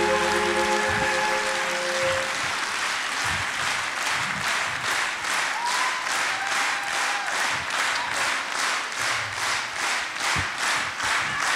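Concert audience applauding, with the last held notes of the music dying away in the first second or two. From about four seconds in, the clapping falls into a steady rhythm in unison.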